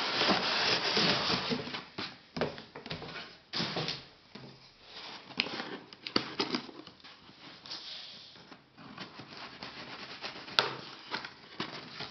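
Packaging being rummaged through inside a box during unboxing. A dense rustling and rubbing lasts about two seconds, then gives way to scattered light knocks and rustles, with one sharp click near the end.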